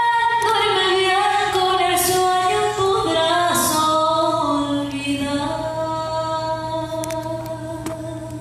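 A woman singing a slow ballad in long, held notes with light accompaniment. The last long note fades out over the second half.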